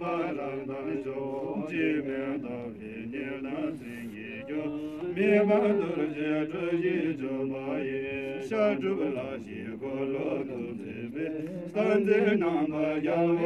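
Buddhist prayers chanted aloud in a continuous, melodic recitation, the voice gliding slowly between a few pitches.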